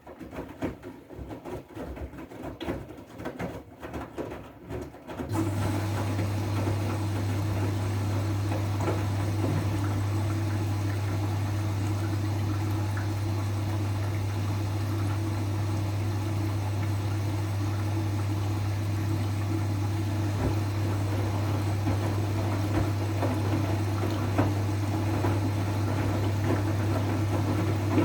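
Siemens iQ washing machine on its wool/delicate cycle: a few seconds of light irregular knocking from the drum, then about five seconds in a steady low hum with rushing water starts and runs on evenly as water flows through the machine.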